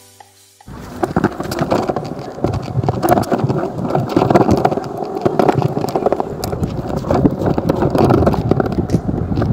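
Skateboard wheels rolling over cracked stone paving: a steady, dense rattle and clatter of clicks as the wheels cross the joints and cracks, starting about a second in.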